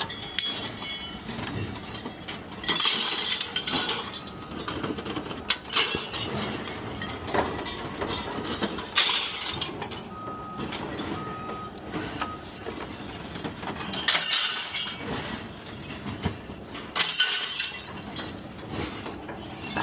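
Scrap metal pieces being handled and dropped onto a pile, with clanks and crashes every few seconds. Two short beeps sound about halfway through.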